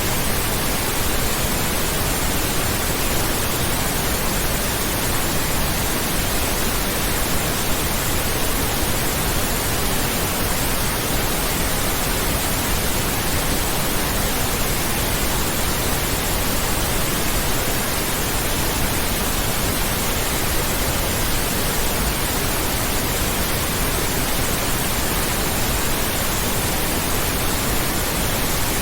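Steady synthetic pink noise: an even, unchanging hiss spread across all pitches.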